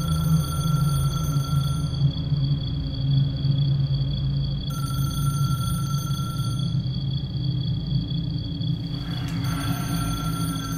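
A telephone ringing: three rings of about two seconds each, a few seconds apart, over a low steady drone.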